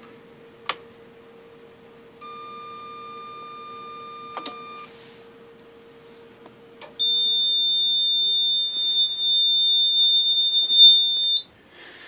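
Eaton Evolution 850 UPS beeping steadily for about two and a half seconds as its power button is held to shut it down, with a couple of clicks; its low hum stops about seven seconds in. Right after, the Simplex 4004 fire alarm panel's trouble buzzer sounds one steady high-pitched tone for about four seconds, the loudest sound: the panel signalling trouble at the loss of power.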